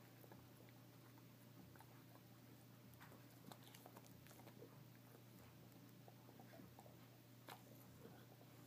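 Old English bulldog faintly chewing and gnawing a Busy Bone dog chew, with scattered soft clicks and crunches over a steady low hum.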